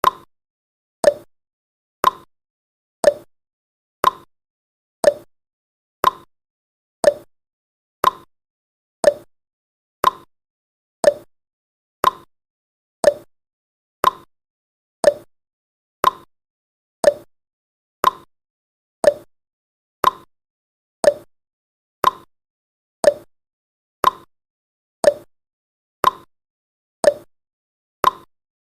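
Countdown timer's ticking sound effect: one short, sharp tick every second, evenly spaced and steady, each dying away at once.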